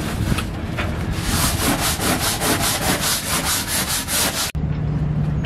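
Long-handled scrub brush scrubbing a boat deck in quick, rhythmic back-and-forth strokes. About a second before the end it cuts off sharply, giving way to a steady low motor hum.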